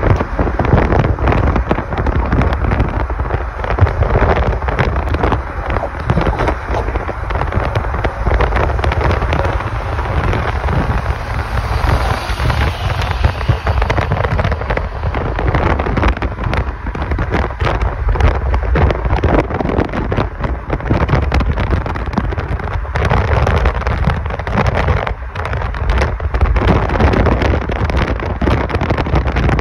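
Wind buffeting the microphone of a phone in a car travelling at highway speed, gusting unevenly over a steady rumble of road noise.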